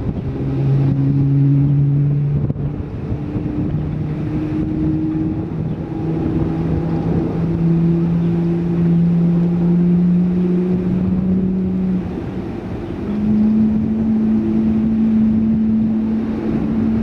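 Boeing 777-300ER's GE90-115B turbofan spooling up during its start: a low tone climbing slowly in steps over a steady loud rumble.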